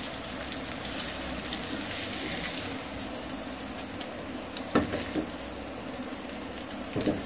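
Eggs frying in hot oil in a nonstick pan, a steady sizzle. Two short knocks cut through it, about five seconds in and again near the end.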